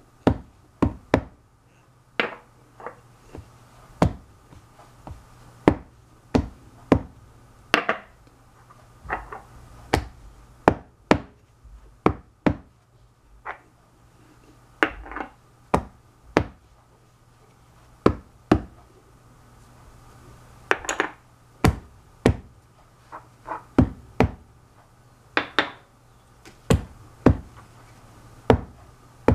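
Small glass jars knocked down again and again on a towel-covered tile counter: dozens of sharp knocks at an uneven pace, some in quick pairs, with a few short scrapes in between.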